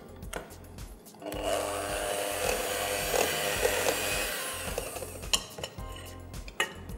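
Electric hand mixer switched on about a second in, its motor whining steadily as the beaters work sugar and cookie dough ingredients in a glass bowl, then switched off suddenly about four seconds later. A few sharp clicks follow.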